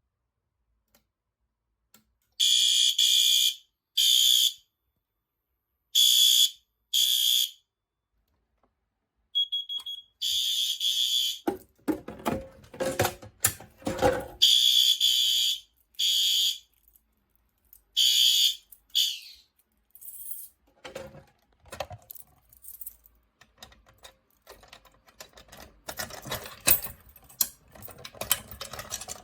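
Fire alarm horn sounding in a series of short, irregular blasts, one steady high tone each, mostly in the first two-thirds. From about the middle there are also sharp clicking and rattling noises, and these grow busier toward the end.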